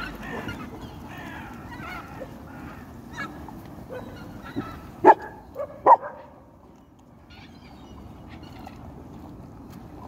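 Animal calls: bending honk-like calls in the first two seconds, then two short, loud calls about five and six seconds in, with a quieter stretch after.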